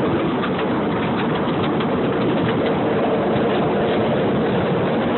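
Steady running noise of a moving train heard from an open car: engine rumble and wheels on the rails, with faint clicks now and then.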